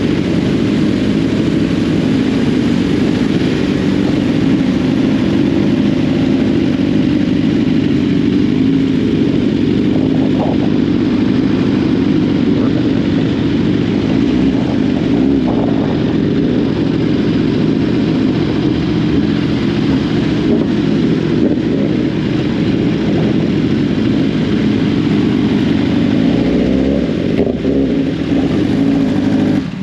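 Sport motorcycle engine running steadily while riding, at an even, loud level.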